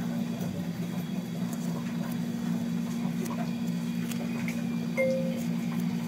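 Adhesive tape being handled and pressed by gloved hands, faint crinkles and small clicks, over a steady low hum. A short beep sounds once about five seconds in.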